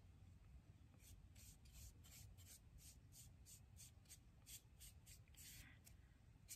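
Faint, quick strokes of a small paintbrush being worked along a wooden spoon handle, about three strokes a second, starting about a second in.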